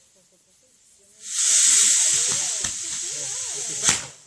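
A firework goes off with a loud, steady spraying hiss that starts suddenly about a second in and ends in a single sharp crack near the end.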